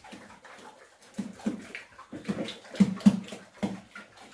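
Pigs grunting: a run of short, low grunts, several in close succession near the middle.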